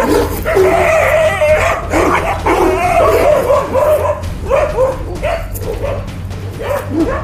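Several stray dogs barking and yelping at once, short overlapping barks coming thick and fast, as the pack faces a wild bear. The barking thins out in the second half.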